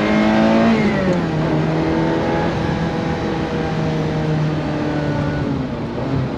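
1992 Ferrari 348's 3.4-litre flat-plane-crank V8 running under throttle while being driven. Its revs drop quickly about a second in, hold steady for several seconds, and fall away again near the end.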